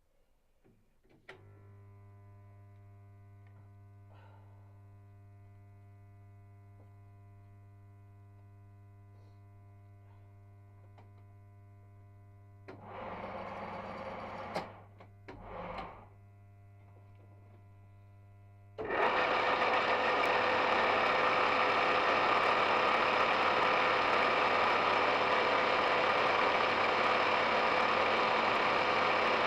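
An electric motor on a 1E95 lathe switches on with a click about a second in and hums steadily. Two short rattling noises come about halfway through. Then, about two-thirds of the way in, a much louder steady running noise starts as the lathe's spindle and gears begin turning.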